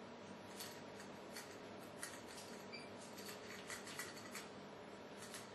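Faint scattered clicks and rubbing from hands working a feeder jumper cable and its connector, over a steady low hiss and hum.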